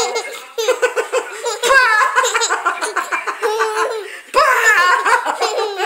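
A baby and a woman laughing together in three bouts, with short breaks about half a second in and just after the four-second mark.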